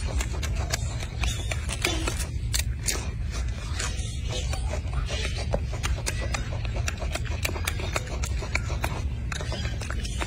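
Rapid, irregular clicks and crackles over a steady low rumble as a golden snub-nosed monkey handles its food and pulls it apart.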